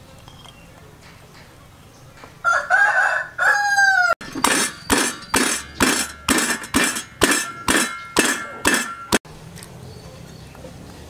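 A rooster crows twice, then a stone pestle pounds garlic and herbs in a stone mortar, about eleven even strokes a little over two a second, stopping abruptly.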